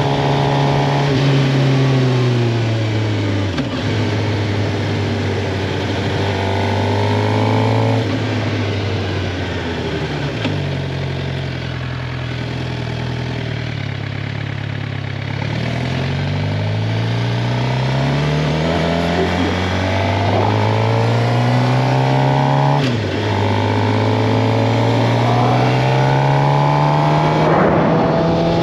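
Suzuki GSX-R 750 inline-four engine under way, its revs rising and falling several times as the bike accelerates and slows, with sudden pitch drops at gear changes.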